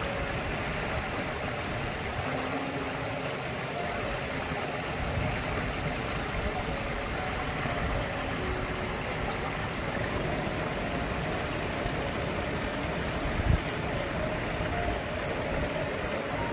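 Small waterfall splashing over rocks into a shallow pool, a steady rushing of water, with a single low thump about two-thirds of the way through.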